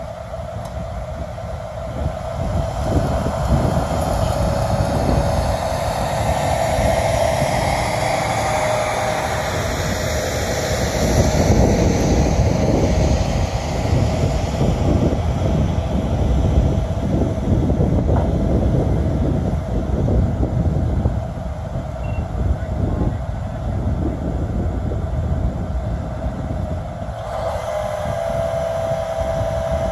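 Heavy diesel road-work machinery, a dump truck and the yellow machine working behind it, running steadily with a heavy low rumble. A higher whine rises and falls for several seconds around the middle.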